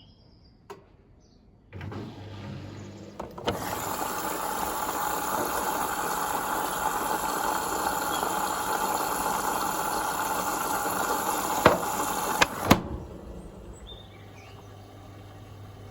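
Zanussi Essential ZWF12070W washing machine starting its wash cycle, in its initial pump-out phase. A low motor hum starts, then a loud steady rushing noise runs for about nine seconds and cuts off with a few sharp clicks, leaving the low hum running.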